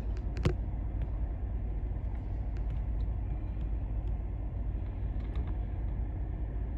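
Steady low rumble of a GMC pickup truck heard from inside its cab, with one sharp click about half a second in.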